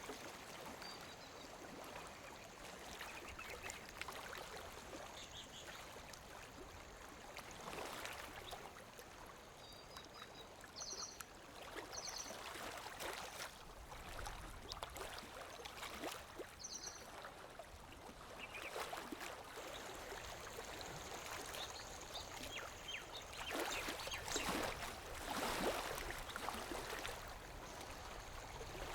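Gentle lake water lapping against the shore in small, irregular splashes, with a few stronger laps near the end.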